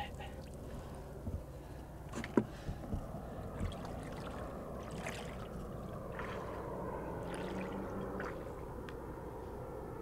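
Legs wading through shallow water: uneven sloshing splashes of steps, one sharper than the rest about two seconds in. The steps then give way to a steady low wash of water.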